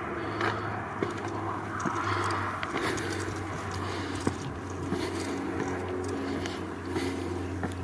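Footsteps scuffing and tapping on stone steps, a few at irregular intervals, over a steady low background rumble.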